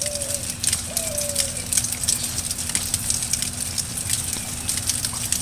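Rain pattering: a dense, steady crackle over a low, steady hum. Two short calls come in the first second and a half.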